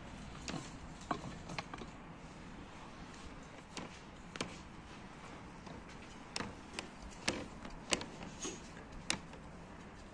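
Scattered light taps and clicks of dough and a wooden rolling pin being handled on a wooden board, irregular and a second or so apart, over a steady background hiss.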